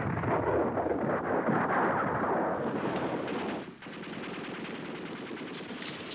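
Rapid automatic gunfire. It is loud for the first three and a half seconds, then drops away suddenly and carries on more quietly.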